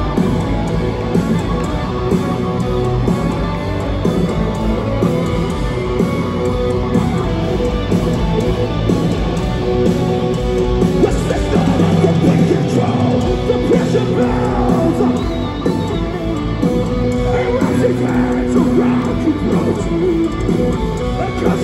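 Metalcore band playing live through an arena PA, loud distorted guitars and drums with the singer singing and yelling over them, heard from the stands.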